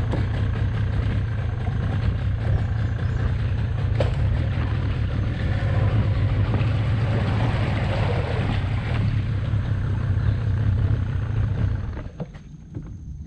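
Small boat's motor running steadily at a constant low pitch while the boat moves, with water rushing along the hull; the engine sound drops away sharply about twelve seconds in.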